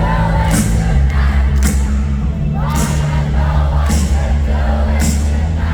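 Live pop-rock band playing loud, with heavy sustained bass and a drum hit about once a second. Voices are singing over it.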